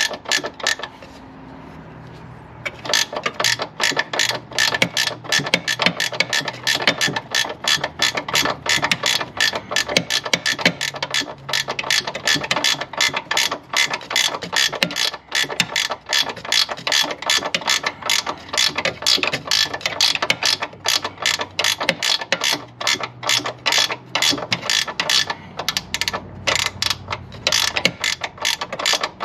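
Hand ratchet wrench clicking rapidly in runs with short pauses, as bolts are run back in during reassembly of the transmission mount; the clicking starts a couple of seconds in.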